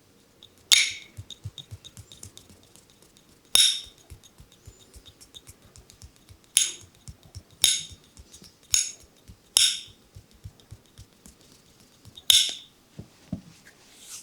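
Percussive hand strikes of a massage on the body: seven loud, sharp smacks at uneven intervals of one to three seconds, with quick light tapping between them.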